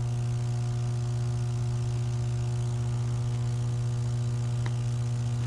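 Steady electrical hum of a substation power transformer: a constant low drone with a ladder of evenly spaced overtones above it, unchanging in pitch and level.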